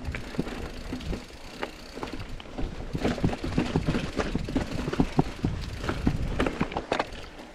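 Mountain bike riding down a trail: irregular clicks, knocks and rattles from the bike over the ground on a low rumble, busier and louder from about three seconds in.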